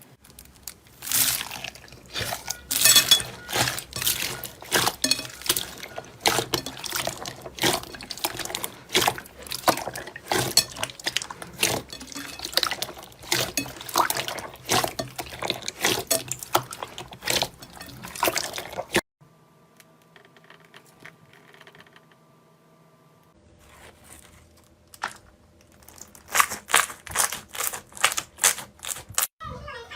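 Slime being squished and worked, a dense run of wet clicks and pops. It breaks off suddenly about two-thirds of the way through, leaving a few quiet seconds, then the wet popping starts again near the end.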